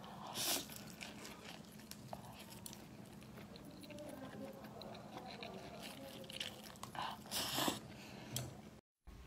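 Soft chewing and mouth sounds of a person eating scallop with glass noodles, with two short louder mouth noises, one about half a second in and one near the end.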